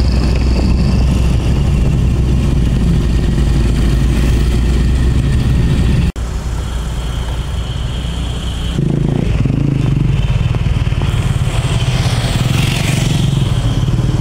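Motor traffic of a slow road convoy of motorcycle tricycles, trucks and cars, heard from a moving vehicle: steady engine and road rumble. The sound drops out for a moment about six seconds in, and its character shifts about nine seconds in.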